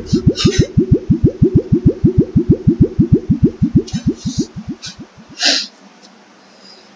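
A cartoon sound effect: a rapid train of short rising tones, about six a second, that fades out after about five seconds, with a few short hissy bursts, the loudest near the end.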